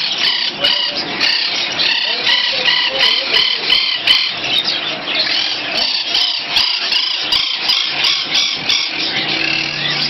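Many caged budgerigars and other small parrots chirping and chattering together, a dense stream of short, high, repeated calls.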